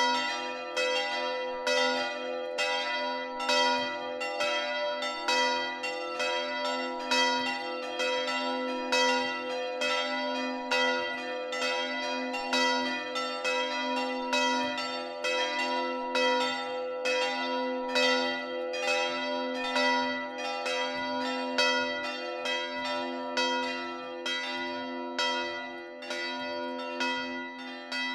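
Church bells ringing a full peal before the service. Several bells are struck in a steady stream, about two strokes a second, over a lasting low hum.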